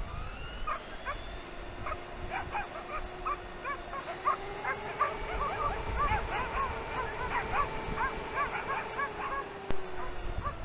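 Dogs yapping in quick, irregular bursts over the steady whine of a Traxxas E-Maxx RC truck's electric motors, its pitch rising slowly.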